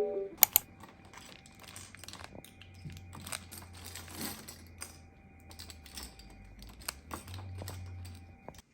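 Irregular light clicks and taps, several a second, over a faint low hum, cutting off suddenly near the end.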